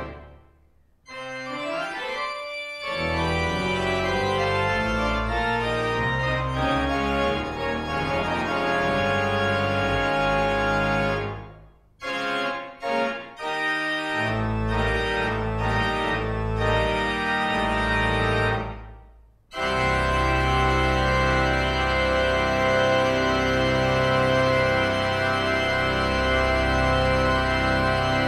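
Church organ playing loud, full sustained chords over a deep pedal bass, as a closing voluntary. The music stops briefly three times: at the very start, about twelve seconds in, and just after nineteen seconds.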